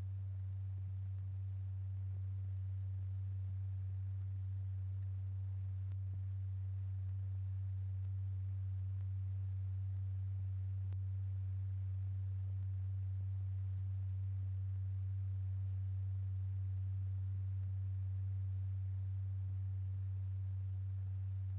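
Steady low pure tone, a single pitch near 100 Hz held unchanged, driving a stretched-paper diaphragm to set the lycopodium powder on it vibrating into a moving pattern.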